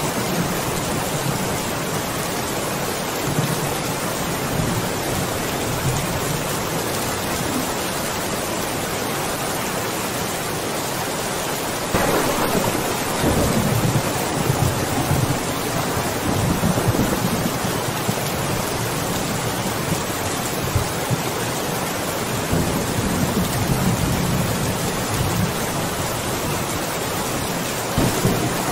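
Steady heavy rain with rolling thunder. A louder thunder rumble breaks in suddenly near the middle and rolls on for over ten seconds.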